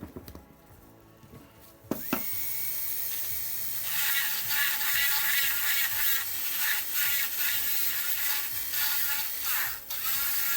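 Dental high-speed handpiece starting up about two seconds in with a rising whine that levels off, then running as it cuts a Class I cavity preparation in a lower molar, over background music.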